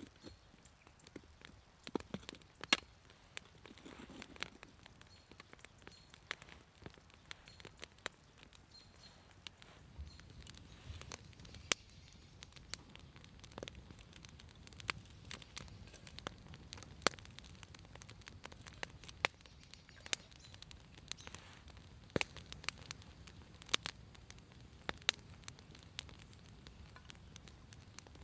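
Wood fire crackling, with irregular sharp pops and snaps, some much louder than the rest.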